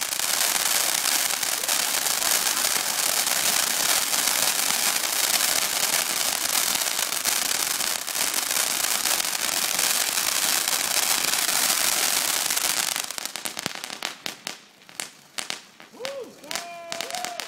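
Ground fountain fireworks spraying sparks with a loud, dense, continuous hiss and crackle. About two-thirds of the way through, the steady spray gives way to scattered sharp crackles and pops.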